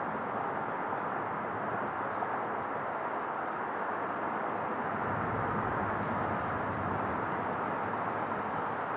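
Steady outdoor background noise: an even, wide rumble with no distinct events, swelling slightly in the middle.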